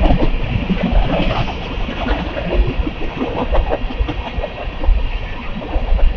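Union Pacific grain train rolling past at close range, its steel wheels clattering and rumbling continuously on the rails.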